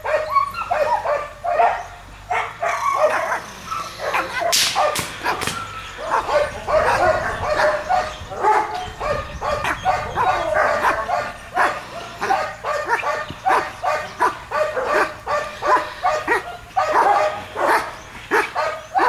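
German Shepherd barking rapidly and without pause, a long run of repeated barks: the alert barking of a protection-trained guard dog in bark-and-hold work.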